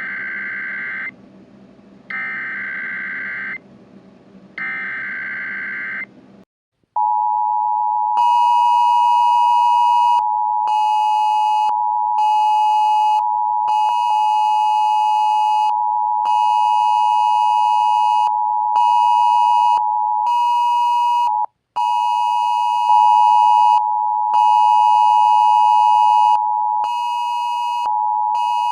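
Emergency Alert System tones: three short warbling data bursts of the EAS header, then a long, loud, steady attention tone, with a higher, buzzier tone switching on and off over it at irregular intervals of about a second.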